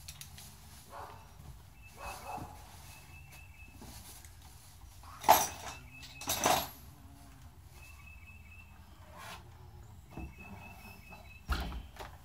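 A dog barks twice, about a second apart, a little past the middle. Short bird chirps repeat faintly in the background, and something is set down with a low thump near the end.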